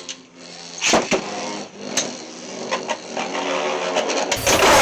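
Two Beyblade spinning tops whirring as they spin against each other, with sharp clacks as they collide. A loud crash near the end, as a top is knocked hard.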